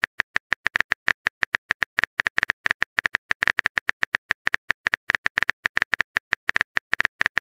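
Phone keyboard tap clicks from a typing sound effect, a rapid, slightly uneven run of about eight to ten short clicks a second as a message is typed out.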